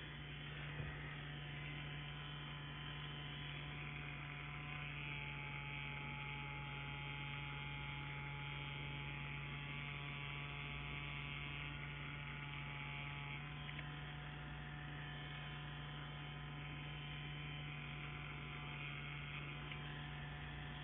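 Solong CNC Q5 wireless rotary tattoo pen running with a steady electric buzz, the tone of the motor shifting slightly about two-thirds of the way through.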